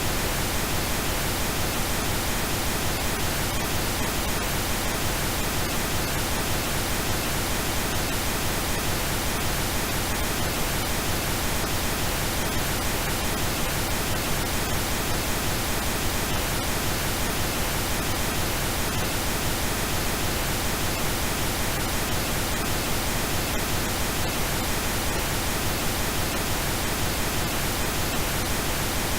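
Steady, unchanging pink noise: a synthetic noise signal hissing evenly across the whole range of pitch.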